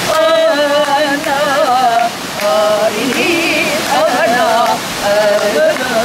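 Women singing a Korean folk song in long, wavering held notes, with hand claps keeping time. A rushing mountain stream runs underneath.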